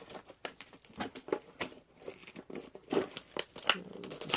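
Product box packaging being handled and forced open: irregular crinkling, tearing and small clicks, with one loud sharp snap near the end as it gives way.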